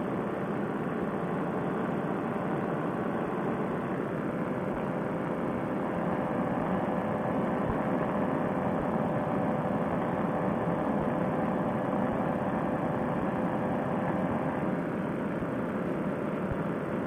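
Fresh Breeze Monster paramotor engine and propeller running steadily at cruise power in flight, a constant drone with a steady hum.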